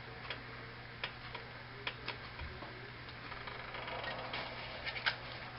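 Scattered, irregular small ticks and pops from a hot nonstick frying pan with leftover butter spitting on the stove, over a steady low hum.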